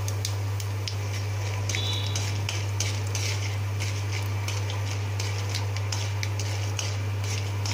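Mustard seeds, chana dal and urad dal sizzling and crackling in hot oil in a steel kadai while a metal ladle stirs and scrapes the pan, over a steady low hum. The seeds are spluttering well, the sign that the tempering is done.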